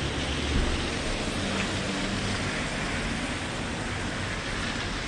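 Steady city traffic noise: a continuous hum and hiss of vehicles on the street, with no single event standing out.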